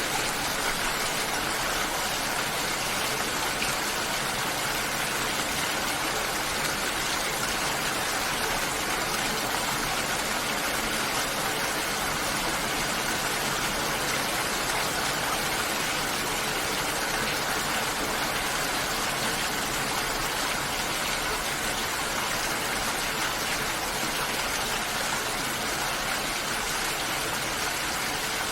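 Steady rain falling: an even, unbroken hiss that holds at one level throughout.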